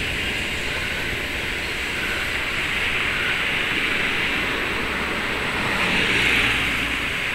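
Passenger train crossing a railway overbridge: the NR class diesel-electric locomotive and its carriages make a steady rumble and rush of engine and wheels, which swells about six seconds in.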